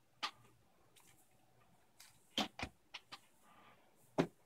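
3D-printed plastic deck boxes clacking against the table and each other as they are set down and stacked. There is a light click near the start, a cluster of four quick clacks midway, and one more near the end.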